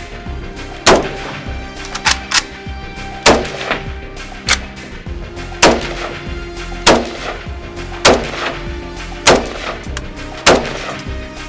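Music with a sharp gunshot-like bang landing on each beat, about one every 1.2 seconds, over steady held chords.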